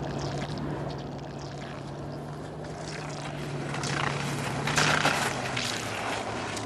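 Steady outdoor rushing noise with a low steady hum, as cross-country skis skate over packed snow; louder scrapes of the skis come about four to five seconds in.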